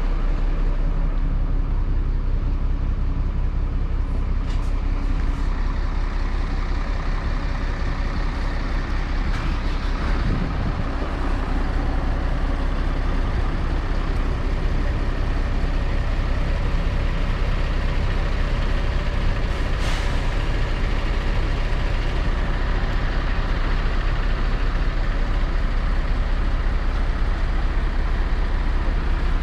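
Iveco 90E18 truck's diesel engine running steadily, powering the hydraulics of its Atlas AK88.1 knuckle-boom crane as the boom is raised and extended. A few brief clicks sound over it.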